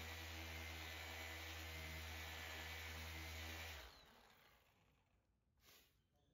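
Flex PXE80 cordless polisher with a 12 mm throw attachment and a 3-inch pad running steadily against car paint, buffing out a paint-transfer mark. It runs as a steady hum, then winds down and stops about four seconds in.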